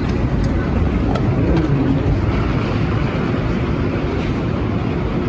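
Steady low rumble of an automated airport people-mover train and its platform, with a few faint ticks.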